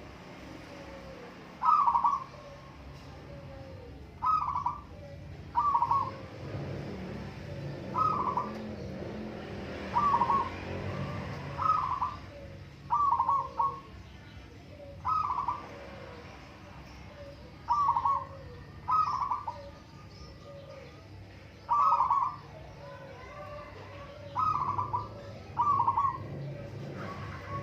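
Zebra doves (perkutut) cooing, several birds calling in turn. Short bright coo phrases come about every one to two seconds, with softer, lower notes in between.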